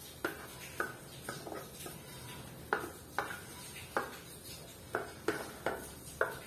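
Wooden spoon scraping thick cream out of a nonstick saucepan, knocking against the pan a dozen or so times at an uneven pace.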